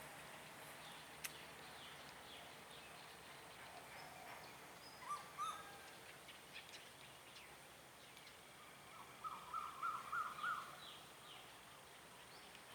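A bird calling: a short call about five seconds in, then a quick run of about six notes near ten seconds, over faint outdoor hiss.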